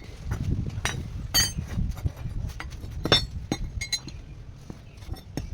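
Metal pieces clinking and knocking together as they are handled, with two sharp ringing strikes, about a second and a half in and about three seconds in.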